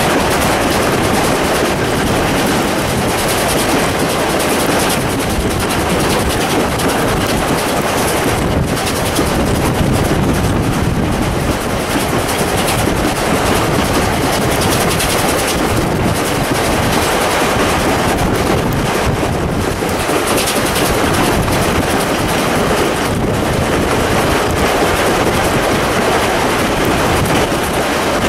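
SteamRanger steam locomotive 621 working hard up a steep 1 in 45 grade, its stack exhaust beating loud and fast in a rapid, steady chatter. Heard from a carriage behind the engine, mixed with the rush of the moving train.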